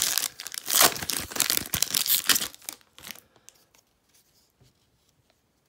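Foil wrapper of a Panini Contenders football card pack being torn open and crinkled, a dense crackling that stops about two and a half seconds in.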